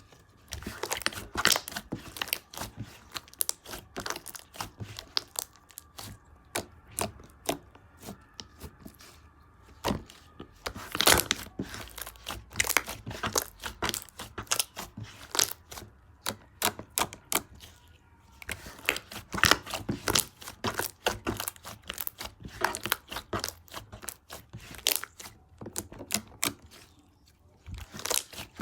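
Cotton candy slime being squeezed and stretched by hand, giving dense runs of crackling and popping clicks in bursts, with short quieter pauses between handfuls.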